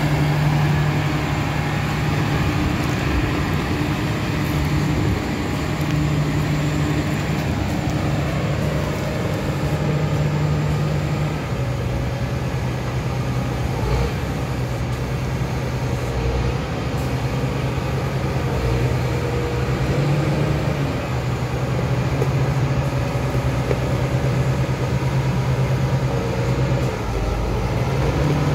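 2009 John Deere 8230 tractor's six-cylinder diesel engine running steadily as the tractor is driven. A higher whine drops in pitch between about eight and eleven seconds in, and the engine note rises and falls a little.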